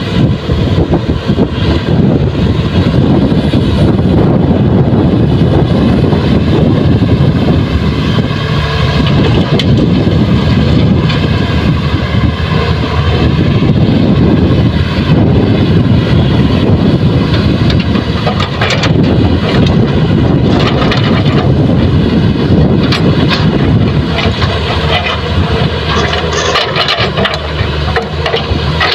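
Heavy diesel engines of a Kobelco excavator and a dump truck running steadily under load, with a few short knocks and clatter in the second half.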